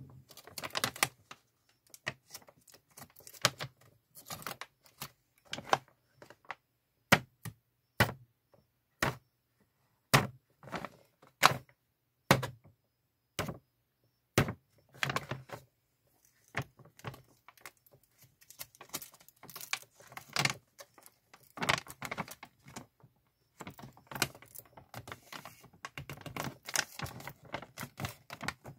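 Plastic zip-lock pouch being pressed shut along its zipper track by fingers: an irregular run of sharp clicks and plastic crackles, busier near the end.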